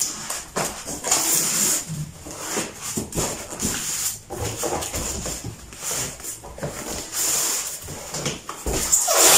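Styrofoam packing blocks scraping and squeaking against a cardboard box as a monitor is slid out of it, in irregular bursts of rubbing and handling noise.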